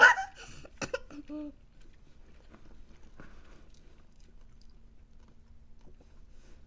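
Close-up mouth sounds of eating and sipping a drink: faint, scattered small smacks and clicks. A short burst of voice opens it, followed by a sharp click just under a second in and a brief hummed "mm".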